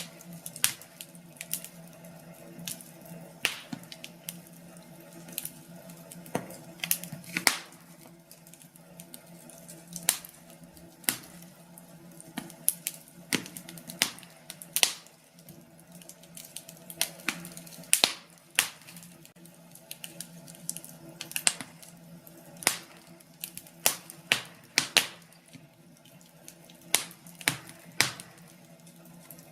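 Wood fire burning in a fireplace, crackling with irregular sharp pops over a steady low hum.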